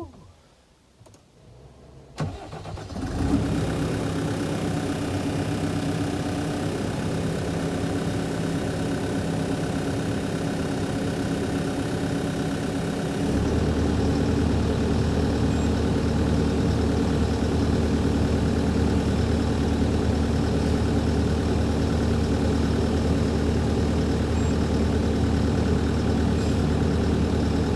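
The rubber-tracked machine's engine starting about two seconds in and then running steadily; about halfway through it steps up to a louder, deeper, steady running note.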